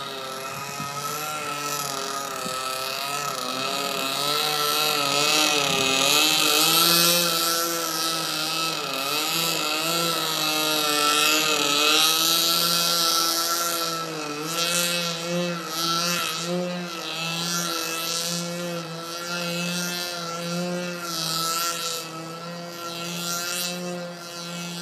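OS .40 FP two-stroke glow engine with a Mac's header, running on a 40-inch RC Yak in flight. Its note wavers up and down as the plane manoeuvres and is loudest in the middle as it passes close. Later it goes steadier, with the level pulsing as the plane moves away.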